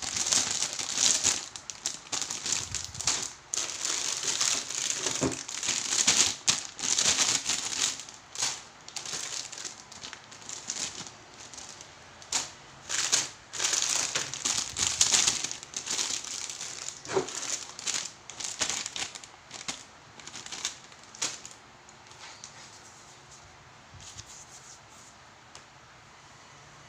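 Clear plastic bags holding model-kit sprue runners crinkling and rustling as they are handled and stacked. The rustling comes in irregular bursts and dies away about three-quarters of the way through.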